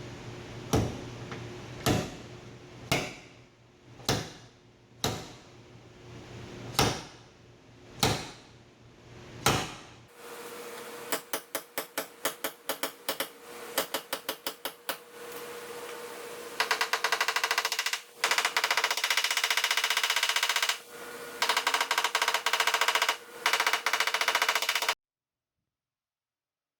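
Steel slide hammer pulling a bent-over double-layered car door edge through a 90-degree hook: eight sharp metal-on-metal clacks about a second apart, each ringing briefly. After that comes a different rapid clattering that grows dense and loud, then cuts off suddenly.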